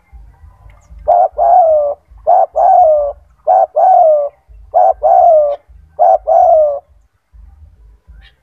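A male spotted dove (tekukur) cooing loudly in a run of five two-part coos, about one every 1.3 seconds. Each is a short note followed by a longer one that falls slightly in pitch.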